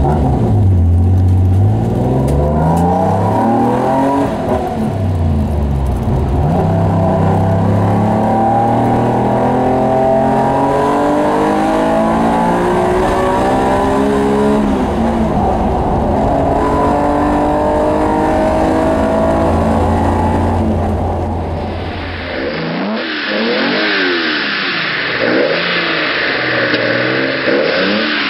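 Nissan Skyline C10 'Hakosuka' straight-six heard from inside the car, accelerating through the gears: the pitch climbs and drops back at each upshift, then holds steady at cruising speed. About 22 seconds in, a separate recording has a triple-carburettor Hakosuka straight-six free-revving in short blips.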